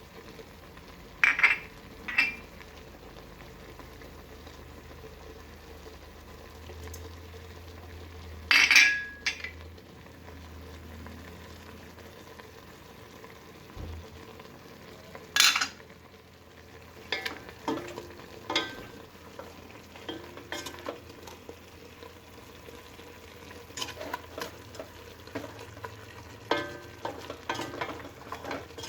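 Chicken pieces frying in oil with ginger in a pot, with a low steady sizzle. A stirring utensil scrapes and knocks against the pot, with a few loud clanks in the first half and frequent lighter taps and scrapes in the second half.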